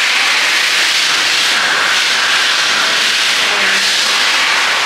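A steady, loud hiss of noise with no distinct events.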